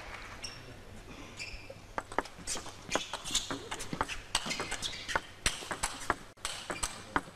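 Table tennis rally: the plastic ball clicking off the rackets and the table in a quick run, about three clicks a second, starting about two seconds in. A few short squeaks of shoes on the court floor come before it.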